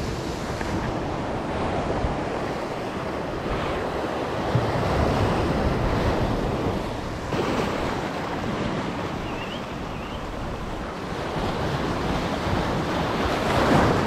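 Surf breaking and washing over a rocky shoreline, rising and falling in slow swells, with wind buffeting the microphone.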